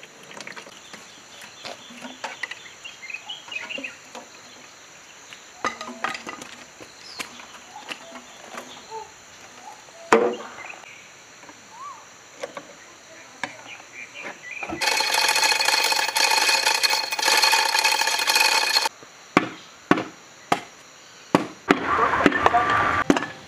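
Metal engine parts and hand tools clinking and knocking during a diesel engine teardown. A loud steady motor whir from a power tool runs for about four seconds in the middle, and a run of sharp knocks follows near the end.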